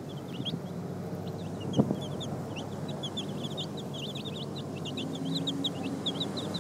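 A group of chicks peeping steadily: rapid, short, high cheeps, several a second, over a low steady background hum, with one brief knock about two seconds in.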